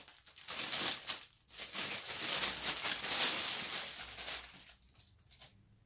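Clear plastic poly bag crinkling and rustling as it is opened and a hoodie is pulled out of it; the rustling dies away about four and a half seconds in.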